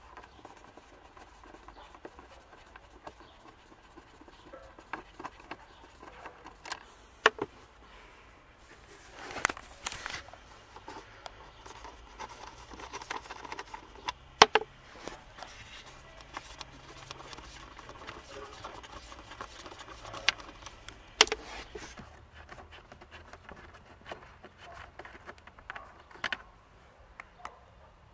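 Scattered small clicks and scrapes of loosened Torx screws being turned out by hand from the plastic glovebox trim, with half a dozen sharper clicks spread through.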